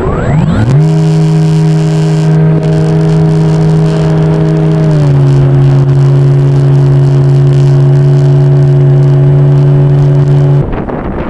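Electric motor and propeller of a radio-controlled model plane spinning up within the first second to a steady whine. The pitch dips slightly about five seconds in, and the whine cuts off suddenly near the end as the motor is switched off.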